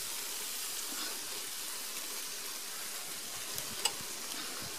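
Tomato-and-spice sauce sizzling with a steady hiss in a frying pan as blended melon seed paste is poured in, with a faint click about four seconds in.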